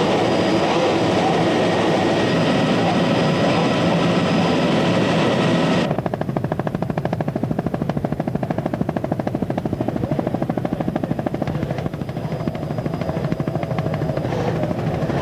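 Loud engine noise at high speed, steady with a few held tones at first. About six seconds in it changes abruptly to a rapid fluttering beat.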